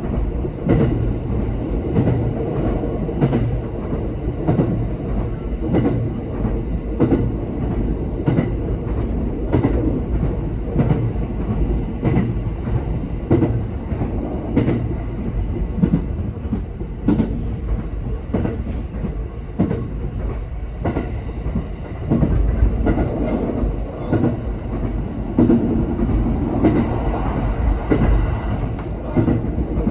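JR West 227 series electric train running on the line, heard from inside the car: a steady low rumble with wheels clicking over rail joints again and again. The rumble grows heavier about two-thirds of the way through.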